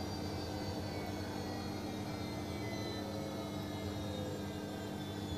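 Steady machine hum with several steady tones, unchanging throughout.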